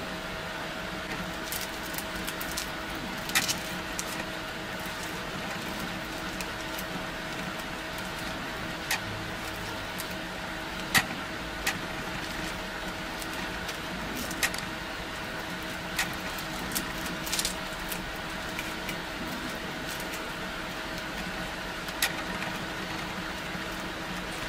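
Steady background hum with a few constant tones, and scattered light clicks and ticks from gloved hands handling the black-coated bayonet blade.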